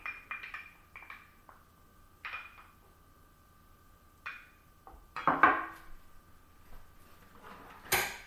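A fork beating an egg in a small glass bowl, with quick clicks of the fork against the glass at first. Then come sparse knocks and clatters of utensils, the loudest a little past the middle, and a sharp knock near the end.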